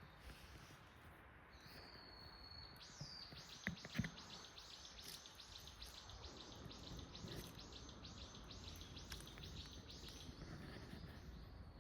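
A bird calling: one held high whistled note, then a long run of rapid repeated high notes, about six a second. Two soft low thuds come about four seconds in.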